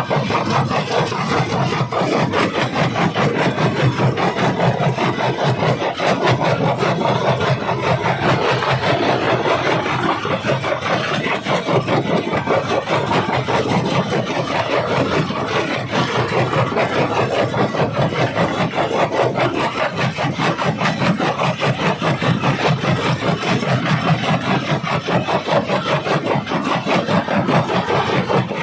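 Jaw rock crusher breaking stone: a steady grinding and crunching with a fast, even rhythm, over the machine's running motor.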